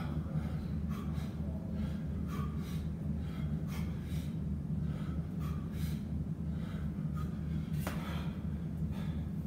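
A man breathing hard through a set of pull-ups and chin-ups, short noisy breaths about twice a second, over a steady low hum. One sharper noise near the end.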